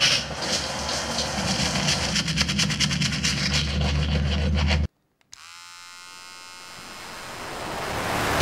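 Loud harsh buzzing with rapid crackle over a low hum, cut off suddenly about five seconds in. After a brief gap and a click, a quieter sound with falling tones swells steadily louder toward the end.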